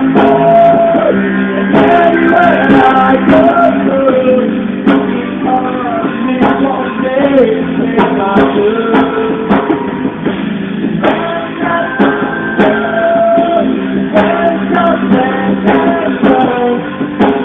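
Live band music: a wavering lead melody over guitar and a steady drum beat. The recording is dull and muffled, with nothing above the mid-treble.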